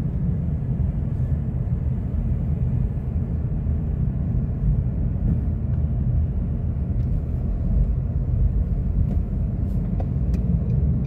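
Steady low rumble of a moving road vehicle, its engine and tyres on the road heard from inside the cabin.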